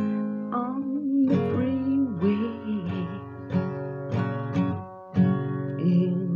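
Acoustic guitar strummed in a steady rhythm, with a voice singing a wavering melody along with it from about half a second in.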